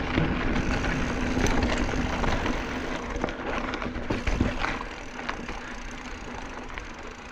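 Mountain bike rolling over a dirt singletrack: tyre and trail noise with wind rumble on a chest-mounted action camera, and scattered clicks and rattles from the bike. It gets quieter over the last couple of seconds.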